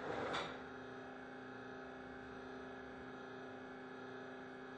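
Steady electrical mains hum with a few faint constant tones: the room tone of the recording, with nothing else going on.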